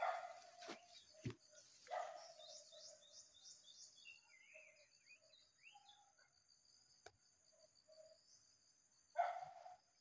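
Near silence, with faint high bird chirps in a quick run of notes a few seconds in. There are a few brief faint sounds near the start and near the end.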